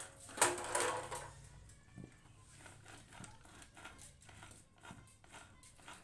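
Metal gears and shafts of a Hero motorcycle gearbox clicking and clinking as they are handled in the open crankcase, with a louder ringing metallic clank about half a second in.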